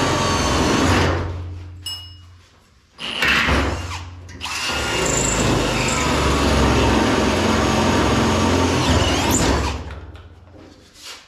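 Electric drill boring bolt holes through the steel frame flange, running in spells. It stops about a second in, runs briefly around three seconds, then runs steadily for about five seconds before winding down near the end.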